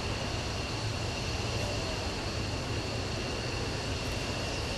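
CASA C-295M's twin Pratt & Whitney PW127G turboprops running steadily: a low propeller drone with a steady high turbine whine over it.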